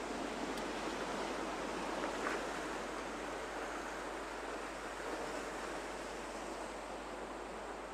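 Sea waves washing steadily against shore rocks, with two faint ticks about half a second and two seconds in.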